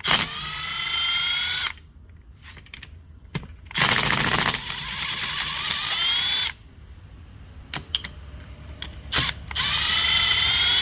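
Milwaukee cordless impact driver running in three bursts, the motor whine rising as each one spins up, as it unscrews the cylinder head bolts of a Honda GX160 engine. The middle, longest burst opens with a rapid rattle of impacts.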